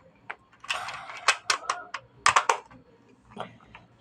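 Hand-worked plastic pellet gun mechanism: a quick series of sharp clicks and two short rattling bursts as the repaired air pump and its parts are worked to test them.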